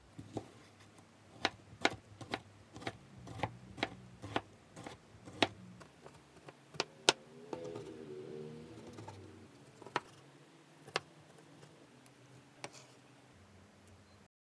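Kitchen knife chopping a tomato on a wooden cutting board: irregular sharp knocks of the blade striking the board, one or two a second, growing sparser in the second half.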